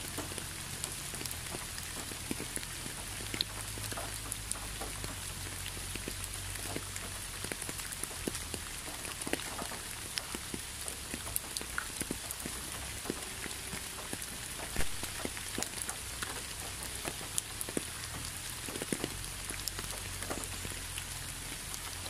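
Steady rain: a continuous hiss with many close individual drops landing in sharp ticks, one louder hit about fifteen seconds in.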